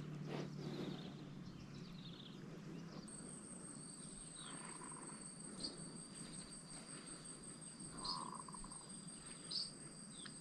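Faint, steady high-pitched insect drone that starts about three seconds in, with a few short chirps over it.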